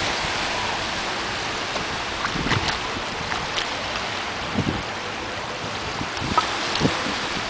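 Small waves washing onto a sandy beach, with wind on the microphone and a few scattered short clicks and knocks.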